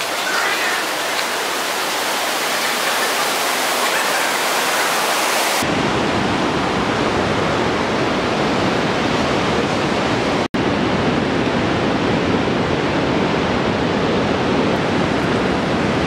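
Steady rush of whitewater rapids tumbling over boulders in a rocky gorge. About five and a half seconds in, the sound cuts abruptly to a fuller, deeper rush, and it drops out for an instant a few seconds later.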